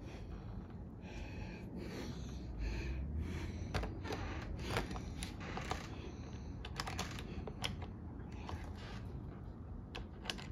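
Irregular small clicks, taps and light scrapes of smart deadbolt parts and the wire connector being handled and fitted against the door.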